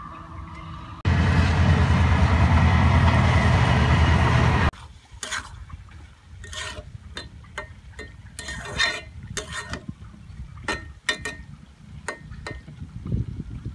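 A loud, even rushing noise about a second in, which stops abruptly a few seconds later. Then a metal spatula stirs and scrapes cooked minced-meat-and-potato singara filling around a metal frying pan, in a run of short scrapes and clinks.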